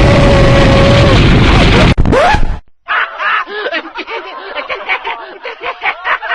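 A loud explosion-like rumbling noise with a faint falling whistle cuts off about two and a half seconds in. After a brief silence comes a rapid, high-pitched snickering laugh, a quick run of short chirps.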